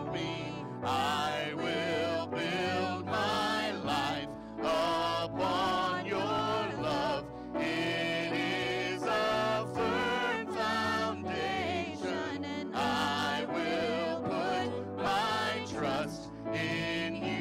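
A live worship song: women's voices singing the melody into microphones, backed by a small band.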